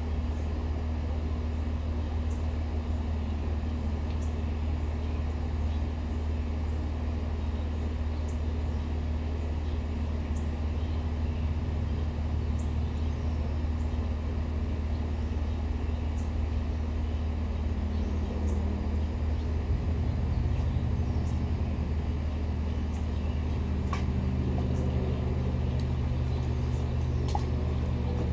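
Steady low drone of a running machine, its tone shifting slightly about twenty seconds in.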